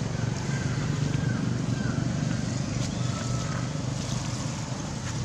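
Steady low rumble under a noisy background, with a few faint, short, falling chirps over it.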